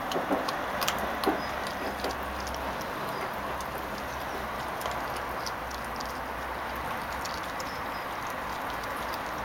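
Labrador puppy gnawing a raw chicken leg: a few sharp crunches and clicks in the first second and a half, then fainter scattered clicks of chewing over a steady background hiss.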